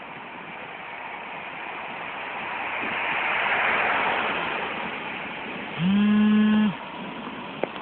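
Storm wind and rain rushing, swelling to a gust midway and easing off. Then a steady, buzzy tone sounds for about a second, followed by a single sharp click near the end.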